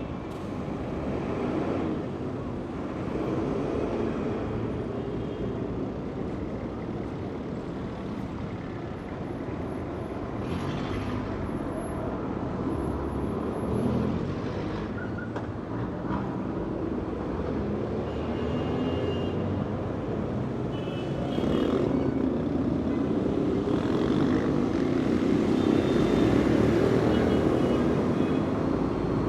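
Steady city street traffic: the engine and tyre noise of passing cars and heavier vehicles on a busy avenue, growing louder about two-thirds of the way through.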